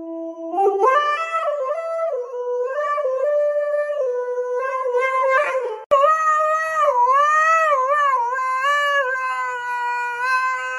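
Siberian husky howling in long held notes, the pitch stepping up and holding. After a sudden break about six seconds in, the howl starts again with a wavering pitch that rises and falls.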